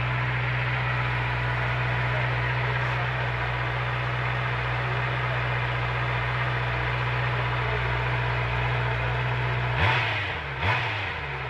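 Honda CBR650R's 649 cc inline-four idling steadily while warming up after a start, heard at its underslung exhaust. Near the end the engine is blipped twice, the pitch rising and falling quickly each time.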